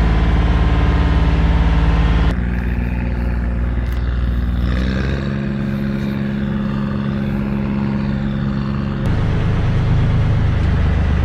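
Enclosed lifeboat's diesel engine running steadily, loud and low inside the cabin. About two seconds in, the sound changes to an engine heard from outside, which speeds up a little about five seconds in. Near the end it switches back to the heavy cabin engine sound.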